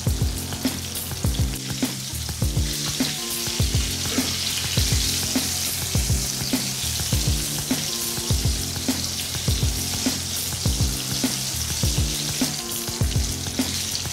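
Breaded chicken pieces deep-frying in hot oil: a steady sizzle and bubbling that grows stronger about two and a half seconds in. Background music with a steady beat and bass line plays under it.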